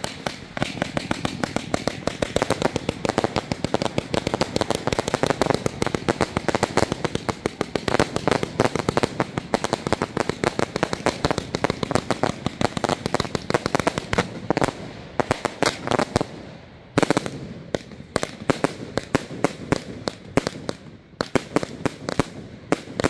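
Fireworks going off in a dense, rapid string of crackles and pops, with a brief lull about 16 seconds in before the crackling picks up again.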